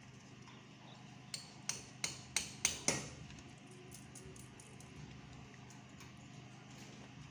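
Six quick, sharp metallic taps, about three a second and growing louder, each with a short ring. Fainter light clicks of small metal hardware being handled follow.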